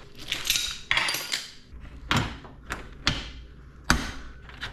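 Metal clanks and clicks of hand tools on garage door hardware, as locking pliers are clamped onto the track and the lift cable is set: a short scrape near the start, then about five sharp knocks spaced unevenly.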